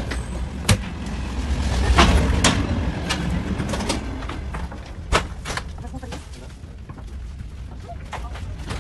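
Low rumble of a moving passenger train heard from inside the carriages, with several sharp knocks and clanks as the end doors between carriages are opened and shut.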